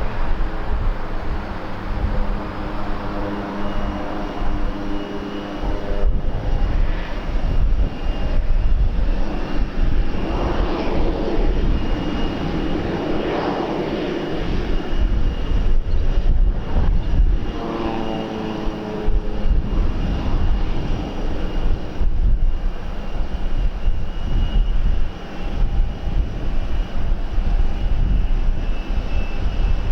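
Airliner engines passing at an airport, their sound swelling to a peak about halfway through and then fading, with a faint high steady whine. Heavy wind rumble buffets the microphone throughout.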